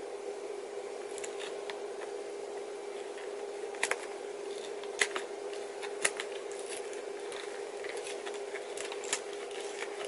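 Shrink-wrapped camera retail packaging being opened: plastic crinkling and a few sharp clicks of box parts being handled, the loudest about 4, 5, 6 and 9 seconds in, over a steady low hum.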